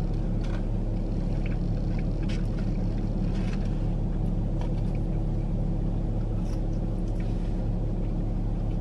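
Steady low rumble of a car's idling engine heard inside the cabin, with a few faint clicks scattered through it.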